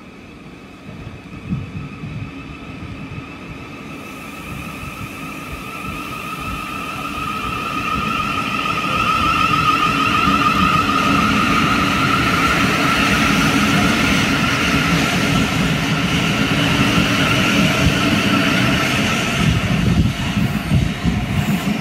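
Thameslink Class 700 electric multiple unit running past. The rail noise builds over the first several seconds to a loud, steady level of wheels on track, with two high whining tones that sink slowly in pitch.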